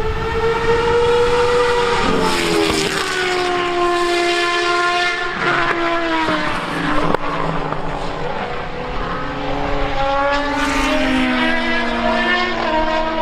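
Racing car engine running hard on circuit, its pitch rising and falling, with abrupt gear changes and short crackles about two, five and ten seconds in.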